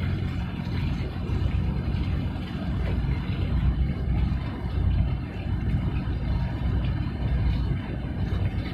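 Low, steady rumble of a harbour tugboat's diesel engine running as the tug moves past across the water, wavering in strength.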